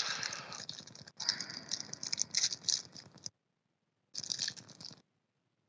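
Clear plastic wrap on a pack of 2022 Panini Absolute Baseball cards crinkling and tearing as it is peeled off by hand. The rustling runs for about three seconds, stops, and comes back in a short burst about four seconds in.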